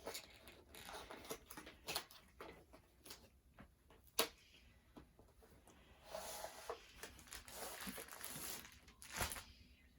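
A cardboard box being opened and its contents handled: faint scattered taps and clicks, a sharp knock about four seconds in, and rustling and sliding from about six to nine seconds in.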